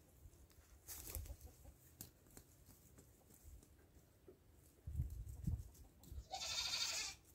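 A goat bleats once near the end, a wavering call lasting nearly a second, after a few low thumps.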